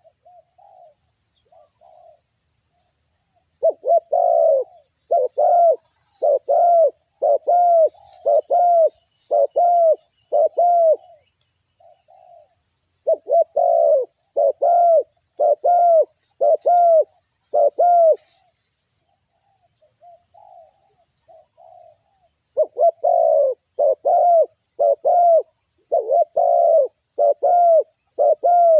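Spotted doves cooing: runs of about eight rounded coos, roughly two a second, broken by short pauses that hold a few softer notes.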